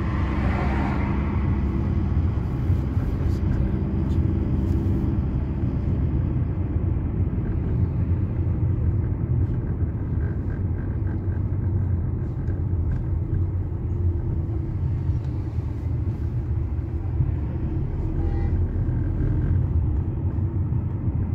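A car heard from inside its cabin while driving: a steady low rumble of engine and tyre noise. A faint engine hum stands out in the first few seconds, then merges into the road noise.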